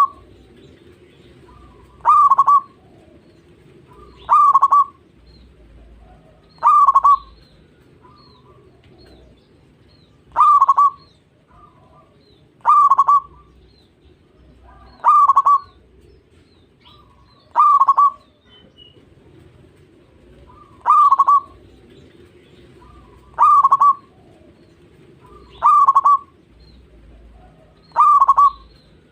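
Zebra dove (perkutut) singing its short cooing phrase, repeated about every two to three seconds, about a dozen times, over a faint low hum.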